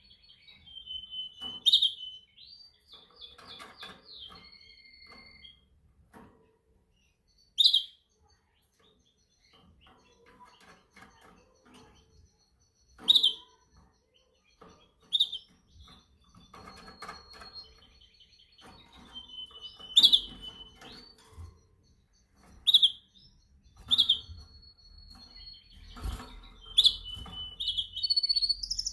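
Domestic canary calling: sharp, high single chirps every few seconds, with a few held high whistles and a short trill in between.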